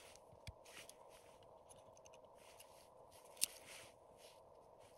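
Quiet rustling and a few light wooden clicks as split firewood pieces are handled on a stacked log tower, with one sharper tap about three and a half seconds in, over a faint steady hiss.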